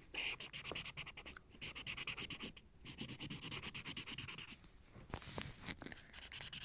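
Felt-tip colouring marker scribbling on paper in quick back-and-forth strokes, about eight a second, in three runs broken by short pauses.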